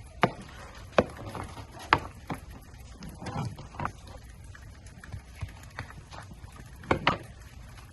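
Scattered sharp cracks and clicks of Alaska king crab shell being broken and pulled apart by hand during cleaning, about half a dozen over several seconds.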